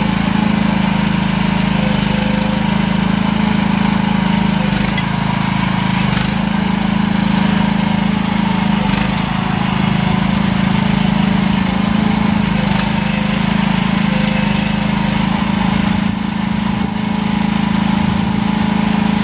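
AGT Industrial QS12R mini excavator's small engine running steadily while the machine is operated, with a few brief clicks over the engine.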